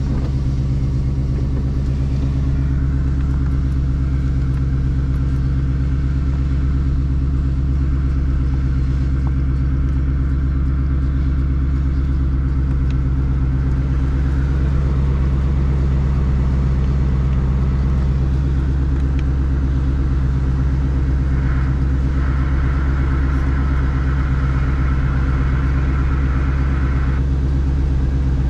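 2017 Ford Mustang's 5.0 L V8 idling steadily, heard from inside the cabin.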